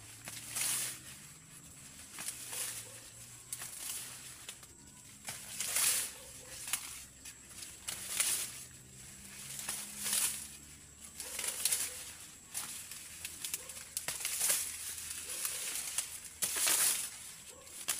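Dry maize leaves and stalks rustling and crackling in short swishes every second or two as cornstalks are bent over by hand: doubling the corn so the ears dry on the plant.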